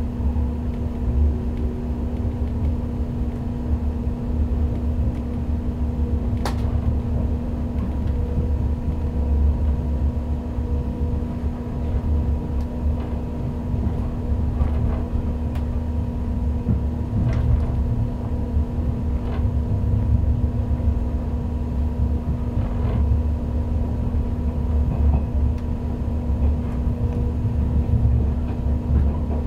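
Inside a JNR 485 series electric train on the move: a steady low rumble of wheels and running gear under a constant electrical hum, with a few scattered sharp clicks.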